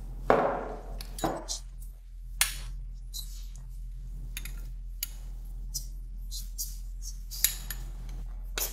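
A small glass bowl set down on a wooden worktop with a knock about a third of a second in, then a metal spoon clinking and scraping against a small glass bowl in a run of light clicks as melted butter is spooned out.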